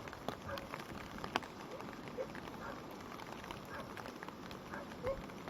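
A stream swollen after heavy rain, its water flowing with a steady rush, short gurgles and scattered small ticks and splashes.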